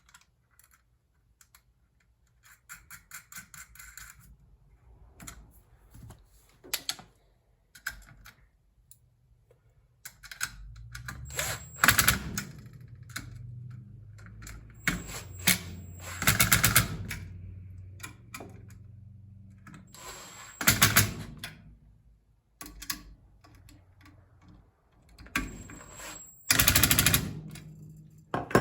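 Rapid runs of mechanical clicking and rattling from tool work on a pump. Partway through, a low steady hum comes in, broken by a few louder, harsh bursts.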